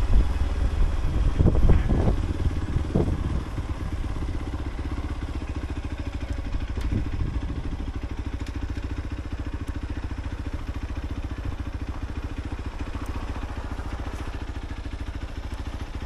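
Motorcycle engine running at low revs as the bike rolls slowly, louder with a few knocks in the first three seconds or so, then settling to a steady, quieter run.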